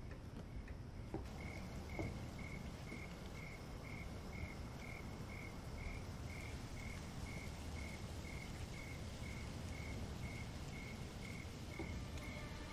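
A cricket chirping at night, one high chirp repeating evenly about twice a second, starting about a second in, over a low steady hum.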